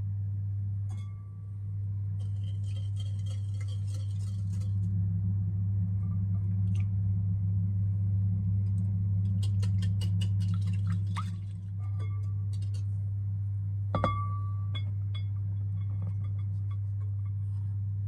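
Wire whisk beating milk and egg in a glass bowl, its metal tines ticking against the glass in two spells of rapid clicks; about fourteen seconds in, a single sharp clink of something hitting the glass bowl rings briefly. A steady low hum sits under it all.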